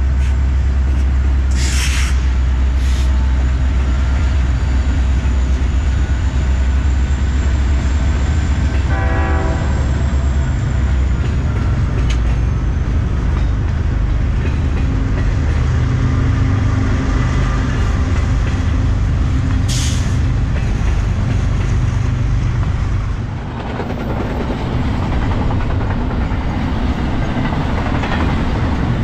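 BNSF diesel freight train passing: the locomotives' engines rumble low and steady, with a brief horn note about nine seconds in. About twenty-three seconds in, the rumble eases into the lighter, steady rolling noise of the cars going by.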